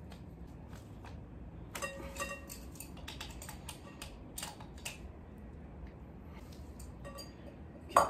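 Small clicks and taps of a plastic shower filter and its metal hose fitting being handled and fitted together, with a brief ringing clink about two seconds in and a sharp clink at the very end.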